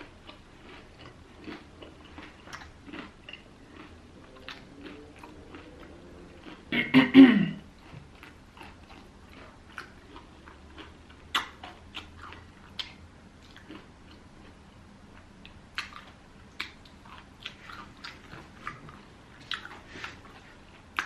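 Close-up chewing of crispy fried chicken: irregular crunches and wet mouth clicks. About seven seconds in, a brief louder vocal sound, like a hum or throat-clearing, breaks in.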